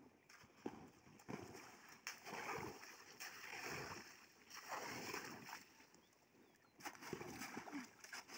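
Paddle strokes through slushy meltwater and broken spring ice: swells of sloshing and splashing every second or so, with a few sharp knocks of ice in the first couple of seconds.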